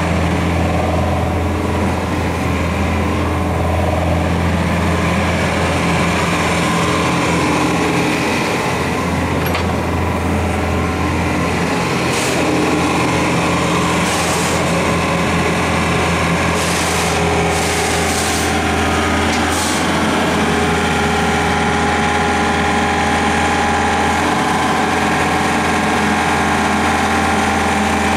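Daewoo Solar 55V mini excavator's diesel engine running steadily while the boom and arm are worked, with several short hissing bursts about halfway through.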